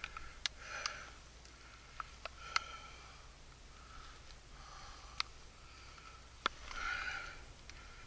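A person sniffing and breathing close to the microphone, with several sharp clicks scattered through.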